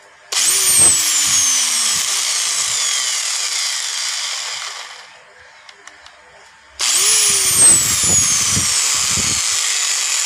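Black & Decker angle grinder run with no load after a gear and bushing replacement, its gearbox not yet greased. It starts abruptly with a high whine, runs about four seconds, winds down and stops, then is switched on again about seven seconds in and runs on.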